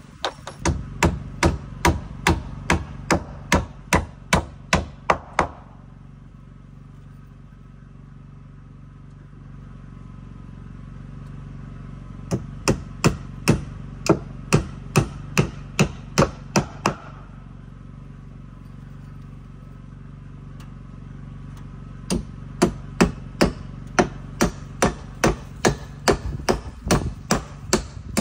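Hammer driving nails into timber, with steady, even strikes at about three a second. The strikes come in three runs of several seconds each, with pauses between them.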